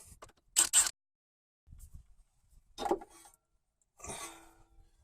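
Two short hissing spurts of aerosol penetrating oil sprayed onto suspension nuts and bolts, a little over half a second in, followed by a couple of faint handling sounds.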